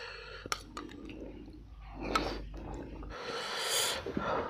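Quiet eating sounds: a few sharp clicks of spoons against the small bowls, with soft chewing and breathing.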